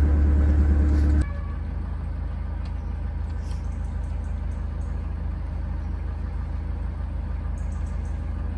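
A narrowboat's diesel engine running steadily while under way, a low even rumble. It is loud for the first second, then about a second in drops suddenly to a quieter, more distant rumble that holds steady.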